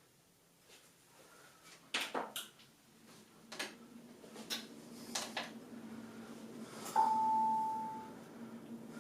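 Newly built desktop PC powered on for its first smoke test: a few sharp clicks, then a steady low hum as its fans spin up, and a single electronic beep about seven seconds in that lasts about a second.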